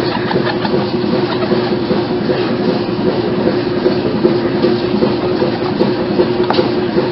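A running machine: a dense, steady rattle over a constant hum.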